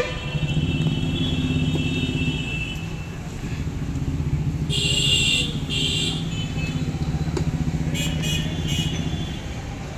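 Motorcycle engine running steadily, with two short horn toots about halfway through and a few brief higher sounds near the end.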